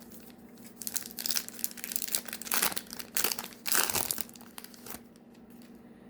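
Crinkling and tearing of a Panini Donruss Optic foil card pack wrapper being ripped open and handled, a run of rustles lasting about four seconds and starting about a second in.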